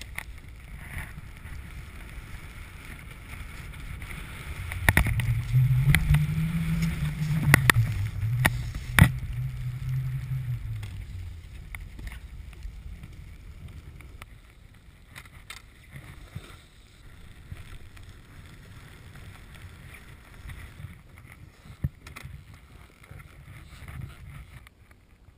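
Wind buffeting the microphone of a camera carried by a snowboarder, over the low rumble of a snowboard sliding across snow, with a few sharp knocks. The rumble swells into a louder, humming drone from about five to eleven seconds in, then eases off.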